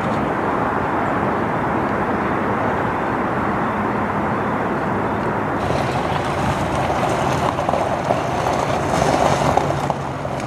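Steady engine or machinery rumble with a hiss. About halfway through it changes, taking on a brighter, hissier edge.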